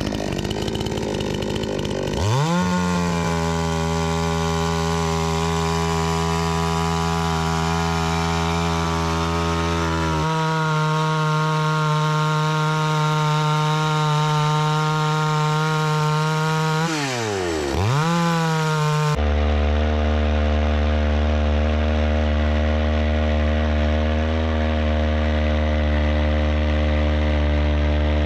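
Two-stroke gasoline chainsaw revving up to full speed about two seconds in and held there while ripping a log lengthwise along the grain. Near two-thirds through, the revs drop sharply and climb straight back.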